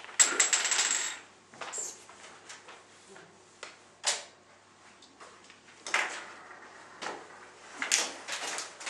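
A rapid run of light metallic clinks and rattles lasting about a second, followed by a few scattered short taps and scrapes.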